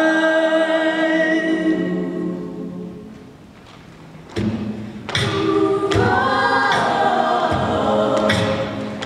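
Mixed a cappella choir holding a chord that fades away about three seconds in. After a brief hush, sharp vocal-percussion beats come in and the voices rejoin in full harmony over them.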